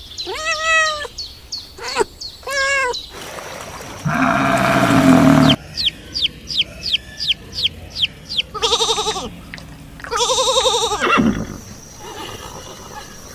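A string of different farm animal calls: two short arching high calls, a low drawn-out call, a quick run of short high falling chirps, then two long quavering bleats.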